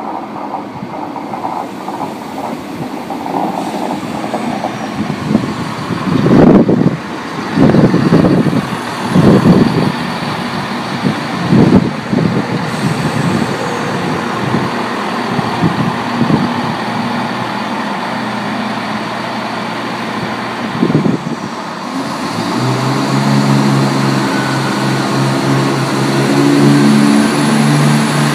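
Class 170 Turbostar diesel multiple unit in a station: a steady rumble with a run of loud low thumps a quarter of the way in, then its underfloor diesel engines idling with a steady low hum over the last few seconds.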